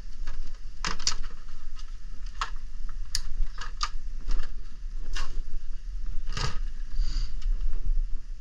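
Handling noise: a steady low rumble with scattered light clicks and taps at uneven intervals.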